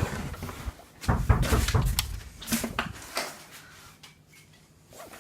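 Irregular knocks and clatters for about three seconds, then it goes nearly quiet.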